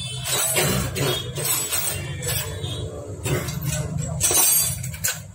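Light metallic clinks of small engine parts and tools being handled on a Hero Splendor Plus crankcase during assembly, a few sharper clicks among them, over continuous background music.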